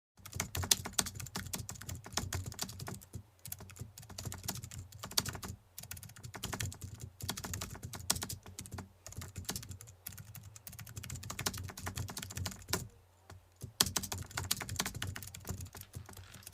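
Fast typing on a computer keyboard: a dense clatter of key clicks with a few short pauses, about three, six and thirteen seconds in.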